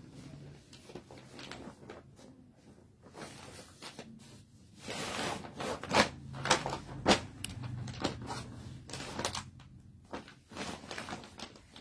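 Clear plastic packet of a salwar suit piece being handled and opened: rustling and crackling plastic, with several sharp snaps and clicks between about six and nine seconds in.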